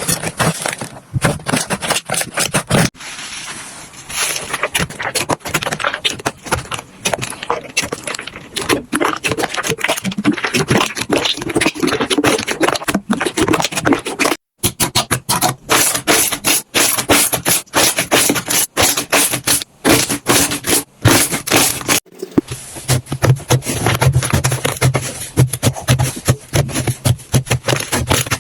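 Slime being squished and worked, with dense, rapid wet clicks and crackles. It comes in several short takes, and the sound changes abruptly about 3, 14 and 22 seconds in.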